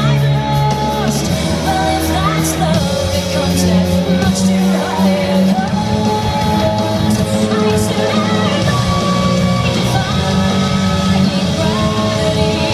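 Loud music with a singing voice, held notes and sliding phrases over a steady bass.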